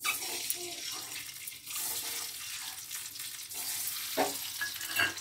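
Peeled hard-boiled eggs sizzling in hot mustard oil in a kadai as they are put in: a loud, steady hiss that starts suddenly, with a couple of louder pops near the end.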